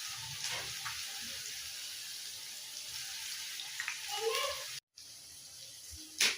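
Running water from a tap makes a steady hiss, with a few light clinks, and stops abruptly at a cut about three quarters of the way through. A single sharp knock comes near the end.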